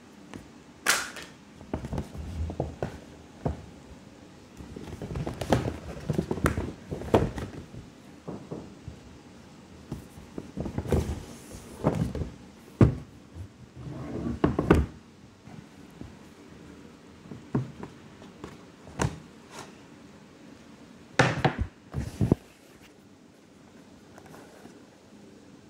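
Handling of a paper gift bag and cardboard gift boxes: irregular rustling and scraping, with several sharp knocks and thunks as the boxes are picked up and set down.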